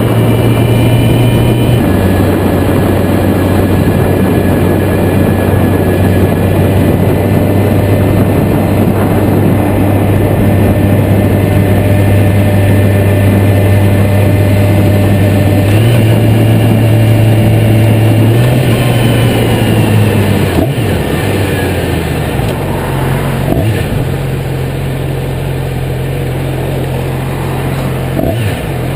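Yamaha YZF-R6 inline-four engine running at a steady cruise on a new bike being broken in, under heavy wind noise on the tank-mounted microphone. The engine note steps in pitch a few times. After about twenty seconds it gets quieter and falls and wavers as the bike slows.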